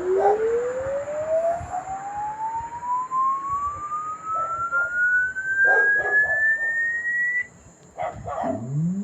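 Electronic test tone sweeping steadily upward in pitch from a low hum to a high whistle, cutting off suddenly about seven seconds in. A second rising sweep starts low again near the end.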